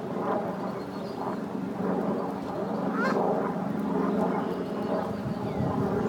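Canada geese and ducks calling softly and intermittently over a steady low rumble, with a short rising chirp about three seconds in.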